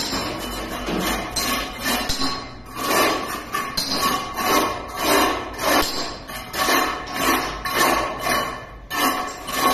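Background music with a steady beat, about one beat every three-quarters of a second.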